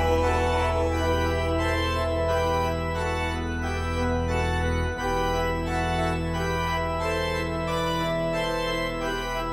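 Instrumental break of a Bulgarian folk-pop song with no vocals: sustained organ-like keyboard chords over a steady bass, changing chord about halfway through.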